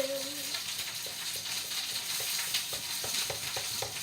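Food sizzling and crackling in a hot frying pan, with a quick run of light ticks in the second half.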